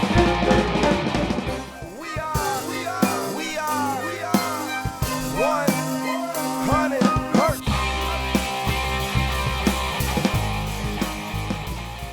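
Rock music recording with a drum kit. A couple of seconds in, the drums and bass drop out under a lead line that swoops up and down in pitch. The full band comes back in about eight seconds in and starts to fade near the end.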